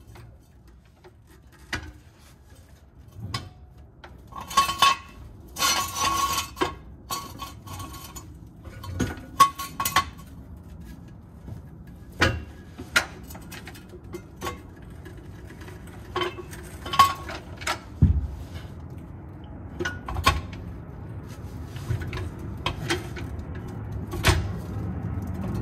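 Irregular metal clinks and clanks, some with a short ring, as a steel jack stand and trailer axle parts are shifted and knocked together. The clatter is densest between about four and ten seconds in.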